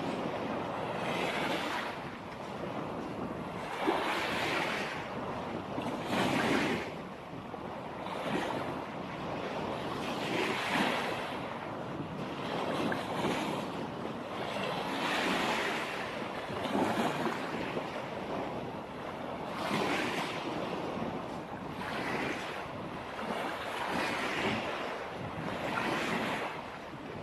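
Small waves breaking and washing up the shore, a swell of surf every two to three seconds.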